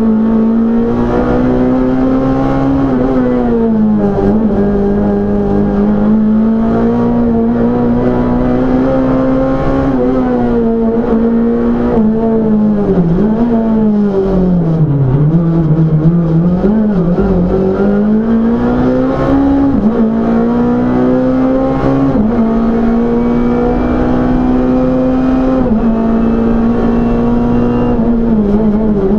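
Hill-climb race car's engine heard from inside the cockpit, driven hard. Its pitch climbs and drops again and again through gear changes and braking, sinking lowest about halfway through before rising again.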